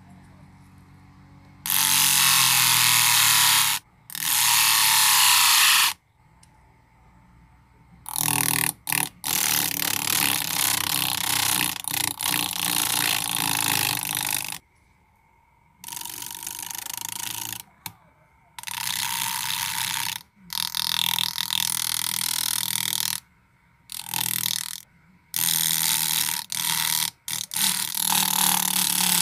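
A metal blade is pressed against a sandpaper disc spun by a small DVD-player motor, in a series of grinding passes. Each pass is a harsh scraping hiss of about one to six seconds that starts and stops abruptly, with the motor's faint hum underneath.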